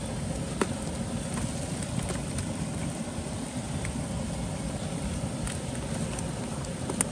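Steady rain falling, with a few scattered sharp ticks of drops.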